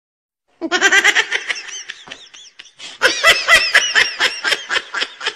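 Laughter: silent for the first half second, then loud, high-pitched laughing in quick repeated breaths, easing off briefly in the middle before picking up again.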